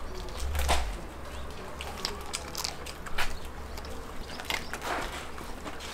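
A man biting and chewing roast lamb off the bone: irregular wet smacks and clicks of mouth and teeth tearing at the meat.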